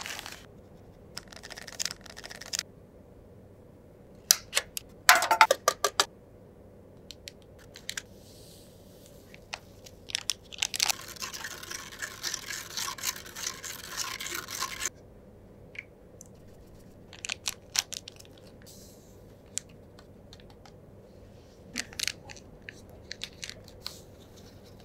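Plastic candy-kit packaging crinkling and tearing open, with the loudest crackle about five seconds in. Then a few seconds of steady rustling scrape, and scattered light clicks and taps of small plastic parts.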